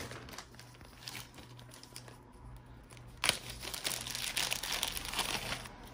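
Small clear plastic baggie crinkling as it is handled and opened by hand. Faint crinkles come first, then a sharp crackle a little over three seconds in and a dense run of crinkling.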